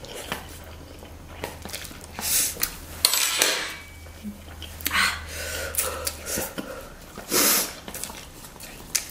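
Eating sounds: spicy instant noodles slurped and chewed in short noisy bursts, with chopsticks clicking and scraping against the paper noodle cups. The loudest bursts come about three seconds in and again about seven and a half seconds in.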